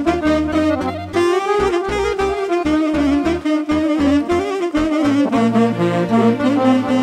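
Instrumental break in a Romanian folk song: a saxophone plays a wavering, ornamented melody over a steady, pulsing bass beat.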